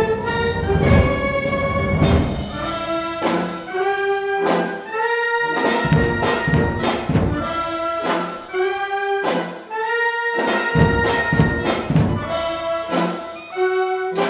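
Symphonic wind band playing a marcha cristiana (Moors and Christians festival march): brass and woodwinds hold full chords that shift about every second, over a slow, steady beat of percussion strikes.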